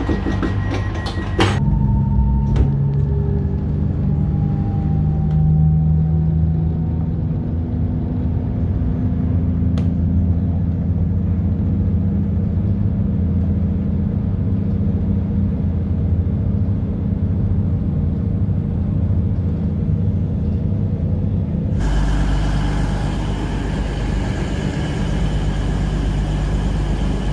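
Passenger train running, heard from inside the carriage: a steady low rumble and hum, with a faint whine that slides down in pitch, after a few sharp clicks near the start. For the last few seconds the sound changes to a brighter, hissier noise of a train at a station platform.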